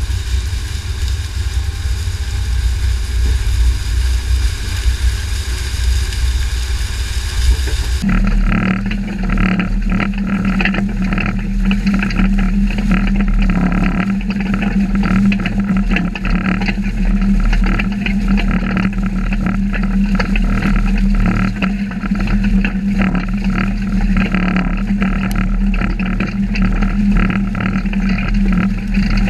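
Cyclone no-till manure injector working through corn stalks behind a manure tanker: a steady mechanical drone with the rattle and churn of the coulter blade cutting stalks and soil. About eight seconds in the sound changes abruptly to a steadier low hum with a busier rattle.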